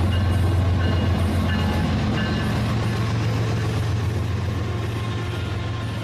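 Train running: a steady low rumble that slowly fades, with short high tones coming and going about once a second.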